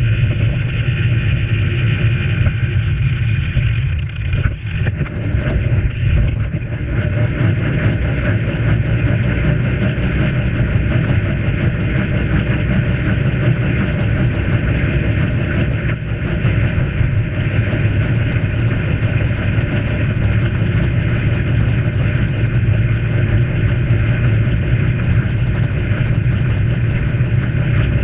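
Steady wind and tyre rumble on a bicycle-mounted action camera as the bike rolls along a tarmac path. There is a brief dip in loudness about four seconds in.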